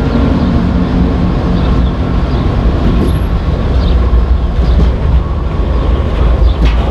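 Freight cars (a covered hopper, then tank cars) rolling past close by: a steady rumble of steel wheels on rail with scattered light wheel clicks. Over the first couple of seconds the engine drone of the just-passed GE ES44AC diesel locomotive fades away.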